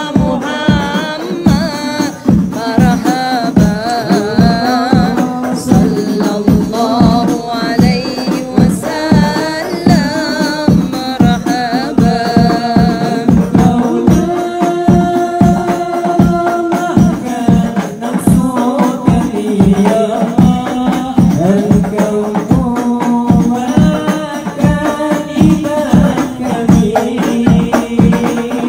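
Group of men singing maulid selawat, praise of the Prophet, together in a wavering melody over a steady percussion beat.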